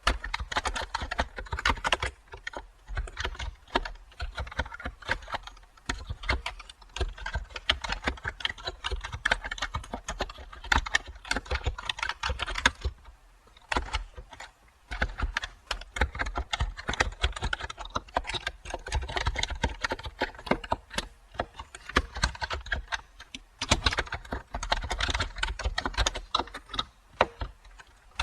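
Typing on a computer keyboard: a fast, continuous run of key clicks, with a short pause about halfway through.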